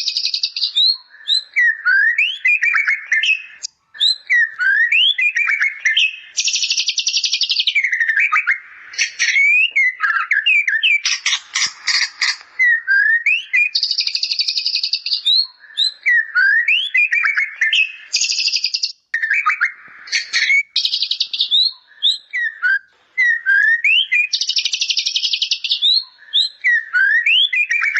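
White-rumped shama (murai batu) singing, its song filled with imitations of the bar-winged prinia (ciblek): short upward-sweeping whistled notes alternate with runs of about a second of rapid, high, buzzy chatter, the phrase pattern repeating every few seconds.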